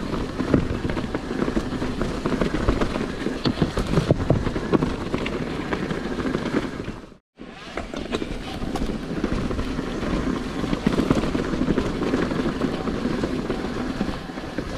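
Mountain bike riding over a rough trail: a continuous rumble of tyres and rattling with many small knocks. The sound cuts out completely for a moment about halfway.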